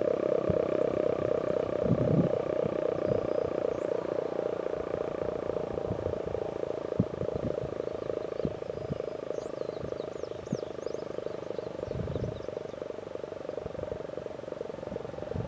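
Werden Electric B-115 single-tone omnidirectional electromechanical siren sounding one steady, slightly wavering tone that slowly grows fainter. A few short bird chirps come in about two-thirds of the way through, along with scattered low thumps.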